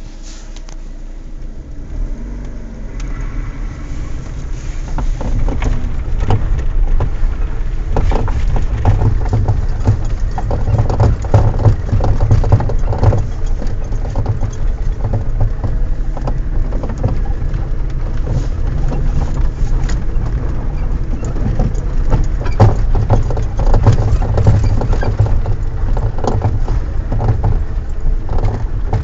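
Car on the move, its low road and running rumble building over the first few seconds, with irregular sharp knocks from the suspension throughout: a strange knock whose cause is not yet known.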